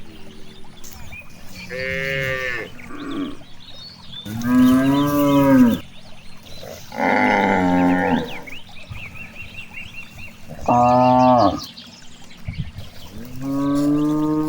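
Cattle mooing repeatedly: five separate moos of about a second each, coming every two to three seconds and varying in pitch from call to call.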